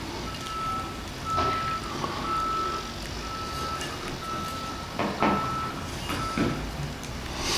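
A vehicle's backup alarm beeping steadily, one tone about once a second, from construction equipment working nearby. A few short knocks sound over it, with a louder one at the end.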